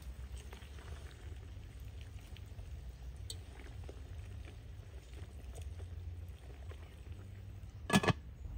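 Spoon scraping and clicking faintly against an aluminium cooking pot as a whole chicken is turned in steaming liquid, over a low steady rumble. Near the end the pot's metal lid is set on with one loud, ringing clank.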